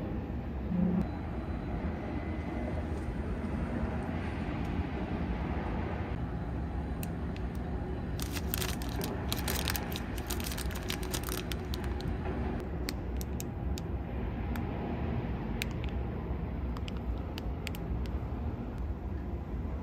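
Steady low background rumble, with a run of quick crackles and clicks about eight to twelve seconds in and scattered single clicks after.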